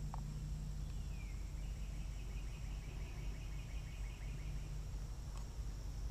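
Outdoor summer ambience: insects droning steadily at a high pitch over a low rumble, with a bird's trill, one falling note then a quick run of repeated notes, from about one to four and a half seconds in.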